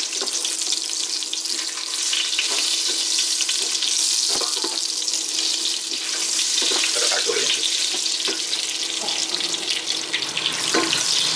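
Chongqing hotpot base and dried chillies sizzling and crackling in hot oil in a stainless steel saucepan, being stir-fried. A wooden spatula knocks against the pot now and then as it stirs.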